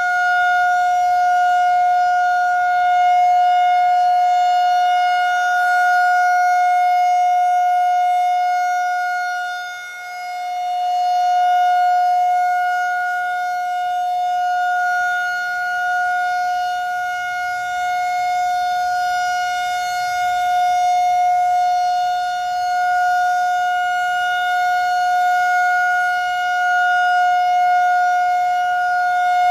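Federal Signal 2001-SRN DC "Roundback" outdoor warning siren sounding a steady alert tone near 750 Hz with overtones, during its 3-minute monthly test. The loudness swells and fades as the rotating head turns, with a brief dip about a third of the way in.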